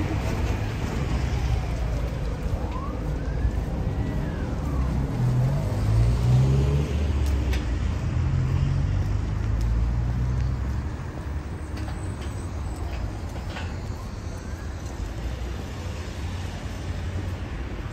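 City road traffic: a steady low rumble of motor vehicles, with an engine running louder through the middle and then easing off for the last several seconds.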